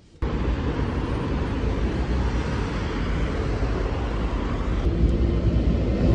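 Steady outdoor street noise: a low rumble of passing traffic with wind on the microphone. It starts abruptly a moment in.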